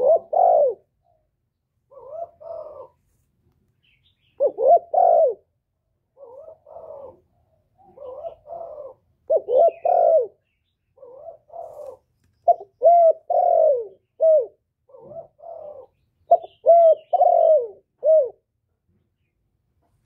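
Male spotted dove cooing: short phrases of two or three low, curving coo notes repeated every second or two, some soft and some loud.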